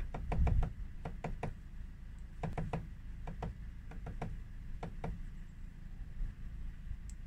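Great spotted woodpecker pecking at a wooden bird feeder: sharp knocks, some single and some in quick runs of two or three, at an uneven pace.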